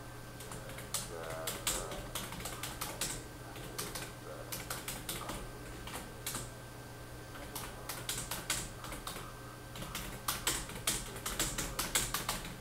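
Typing on a computer keyboard: quick runs of key clicks in irregular bursts, with short pauses between them.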